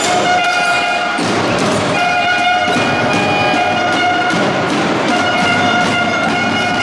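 A horn blown in the arena crowd, sounding long held notes several times in a row, over crowd noise and the knocks of a basketball bouncing on the court.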